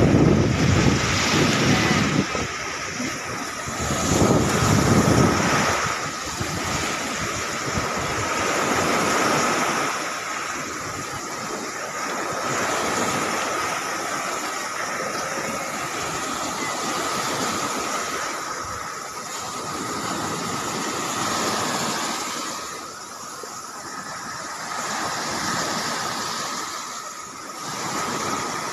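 Waves washing onto a sandy beach, with wind buffeting the microphone in heavy gusts near the start and again about four seconds in.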